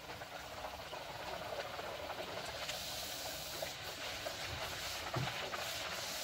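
Spinach poori deep-frying in hot oil in a kadai: a steady sizzle with fine crackling, building over the first two seconds as the oil bubbles around the dough.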